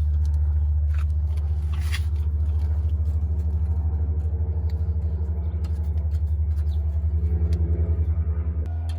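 A low, steady machine hum with a fast, even pulse; it drops and changes tone just before the end.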